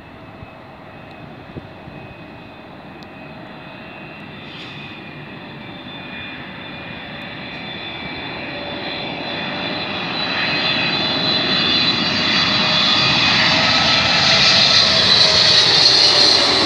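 Boeing 777-300ER's twin GE90 turbofans on final approach, growing steadily louder as the airliner nears, a high fan whine over the engine noise. Near the end one tone in the engine sound drops slightly in pitch as it comes close.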